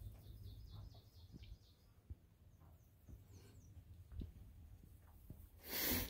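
Faint songbird singing a quick run of repeated high notes, then a few short falling notes, over a low wind rumble with a few soft knocks. Just before the end a brief, louder rush of noise.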